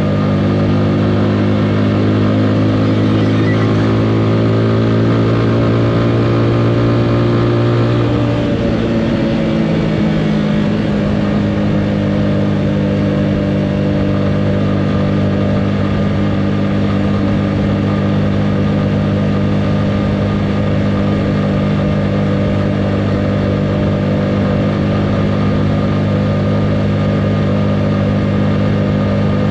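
Motorcycle engine running under way, its note changing about eight seconds in, then holding steady.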